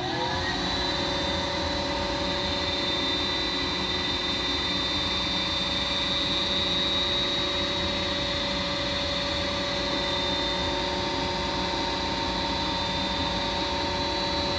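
Goodman gas furnace's draft inducer motor finishing its spin-up with a rising whine in the first half second, then running steadily with a whir and a high, constant whine. The pressure switch still does not close and the three-flash fault remains, which is later traced to gunk clogging the inducer's tiny suction port.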